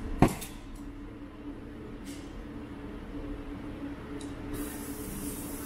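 Acetylene torch being lit: one sharp pop about a quarter of a second in, then from about four and a half seconds a steady hiss of gas as the flame is turned up.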